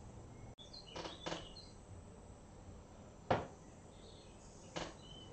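Faint room hiss with a few short soft clicks and taps from fly-tying tools handled at the vice, the sharpest about three seconds in.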